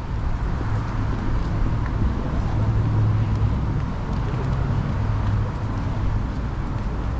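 City street ambience: a steady hum of road traffic from passing cars.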